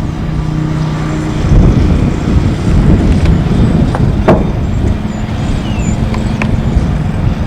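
Lawn mower engine running steadily with a low hum, louder and rumbling for a few seconds in the middle, and a brief sharp click about four seconds in.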